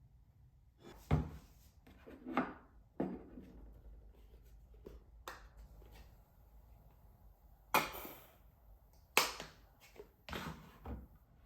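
About eight irregular knocks and clatters of objects being handled and set down, loudest about a second in and again around eight and nine seconds.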